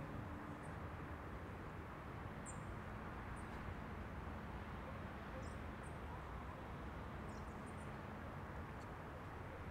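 Quiet open-air background with a steady hiss and scattered short, high-pitched bird chirps.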